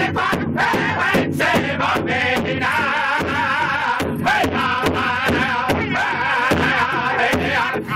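Powwow drum group: several men singing together in high voices over one large shared powwow drum, beaten in a steady unison beat with drumsticks.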